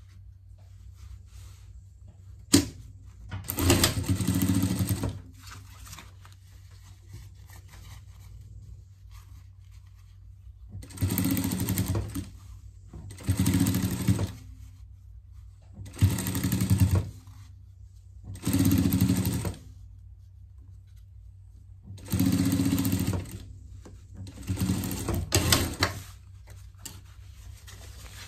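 Industrial sewing machine stitching fabric in seven short runs of about a second each, with pauses between them as the cloth is repositioned. A steady low hum runs underneath, and there is a sharp click about two and a half seconds in.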